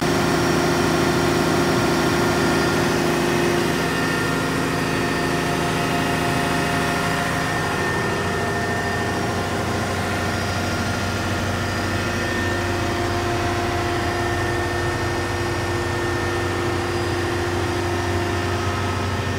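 Caterpillar 740B articulated truck's C15 diesel engine idling steadily; the tone of the hum shifts about seven seconds in as it is heard from inside the cab.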